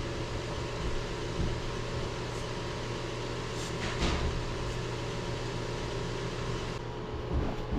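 Pellet stove running, its fans giving a steady whirring hum with a constant low drone, with a few faint clicks.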